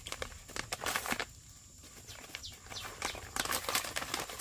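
A plastic instant-noodle wrapper crinkling and rustling as it is handled and torn open by hand, in quick crackly bunches around the first second and again near the end.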